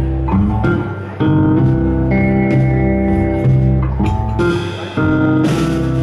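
Electric guitar, a 1959 Fender Telecaster, playing slow sustained blues chords over bass and drums. Chords are struck about a second in and again near the end, each left to ring and fade, with a cymbal just after the last one: the closing bars of the tune.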